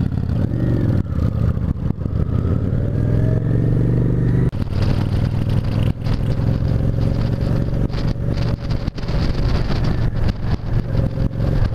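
Cruiser motorcycle engine pulling away from a stop. The pitch climbs for a few seconds, drops suddenly at a gear change about four and a half seconds in, then runs steadily.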